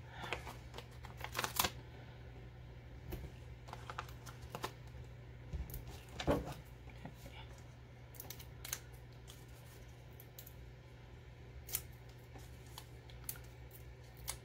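Scattered soft clicks and paper rustles from hands peeling foam adhesive squares off their backing sheet and pressing them onto cardstock pieces, over a low steady hum.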